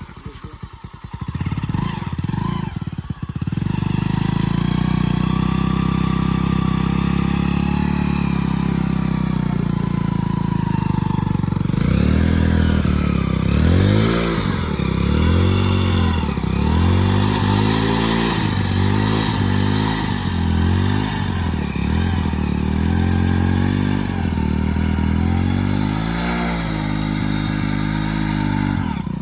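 Hero Splendor Plus motorcycle's small single-cylinder four-stroke engine running, uneven for the first few seconds and then steady. About halfway in, the revs rise and fall again and again with repeated throttle blips, before it settles to a steady note near the end.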